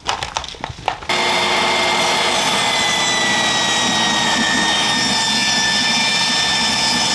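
Portable table saw ripping a rough-sawn board along its fence: a loud, steady whine and blade noise that starts abruptly about a second in, its pitch sagging slightly as the blade works through the cut.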